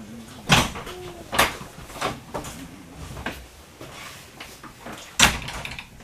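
Irregular sharp knocks and clunks inside a passenger railway carriage, about five of them, the loudest about half a second in and again near the end.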